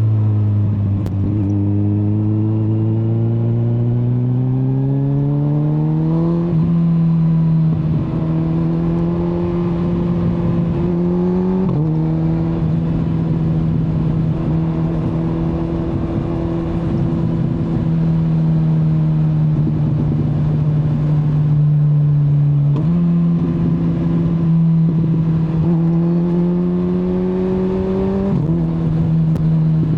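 Kawasaki Z900's 948 cc inline-four engine pulling through the gears under load. Its note rises for several seconds, steps at gear changes, holds steady for about ten seconds, jumps up at a downshift, climbs again and drops at an upshift near the end, with wind and road noise underneath.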